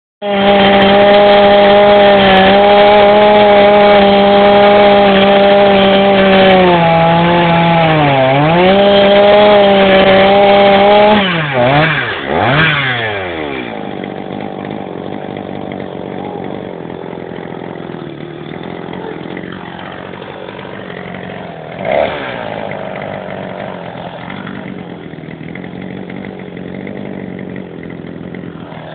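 Two-stroke chainsaw at full throttle, its pitch dipping briefly about eight seconds in as it bites into wood. Around eleven to thirteen seconds the throttle is released and the engine note falls away. It keeps running much more quietly after that.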